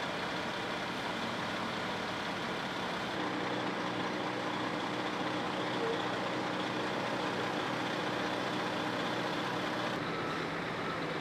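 Fire truck engines running steadily: a constant hum under a steady hiss.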